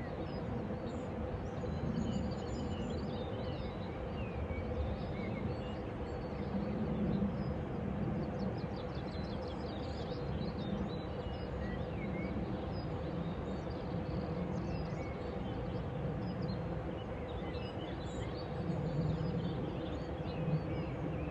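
Outdoor evening ambience: scattered small-bird chirps and twitters over a steady low rumble that swells now and then, with a faint constant hum underneath.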